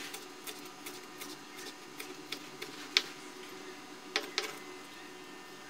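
Kitchen knife chopping fresh coriander on a wooden cutting board: irregular sharp knocks of the blade striking the board, the loudest about three seconds in and a quick pair a little after four seconds.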